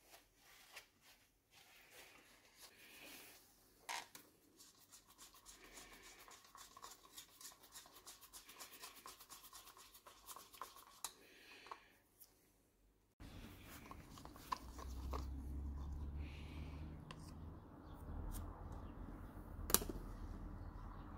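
Faint scratching and fast small clicks of a stick stirring a liquid in a small plastic cup, with gloved hands rustling paper towel. About two thirds of the way in it changes to a low outdoor rumble with a few light knocks and one sharp click near the end.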